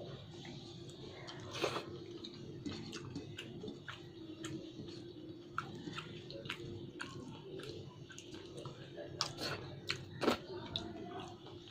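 Close-up eating sounds: chewing and wet mouth noises of someone eating pulao and curry, with scattered sharp clicks and two louder ones about two seconds in and near the end, over a faint steady hum.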